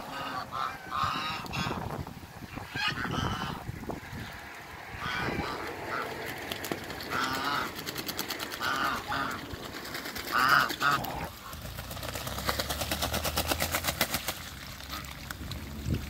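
A flock of domestic ducks calling with repeated short, honking quacks. After the middle the calls give way to a fast, even run of short pulses lasting a few seconds.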